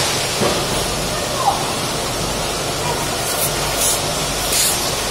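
Steady rushing background noise, with a few faint brief clicks near the end.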